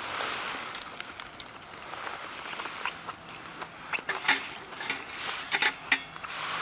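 Irregular knocks and clicks of objects being handled, over rustling, coming thicker about two-thirds of the way through.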